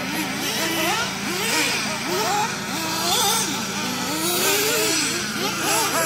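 Several radio-controlled off-road buggies lapping a dirt track, their motors revving up and down over and over, the pitch rising and falling as they accelerate and brake.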